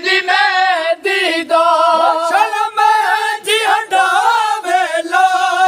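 A group of men singing a Punjabi noha, a mourning lament, in unison without instruments, holding long notes whose pitch wavers and bends.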